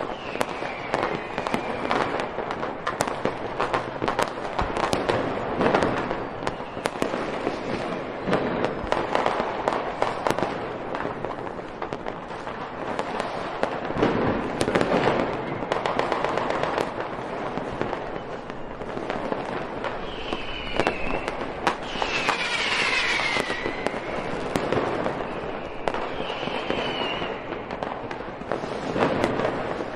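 A dense, unbroken fireworks barrage: rapid crackling and popping over a steady run of bangs. A few whistling rockets glide down in pitch, at the start and again about two-thirds of the way through.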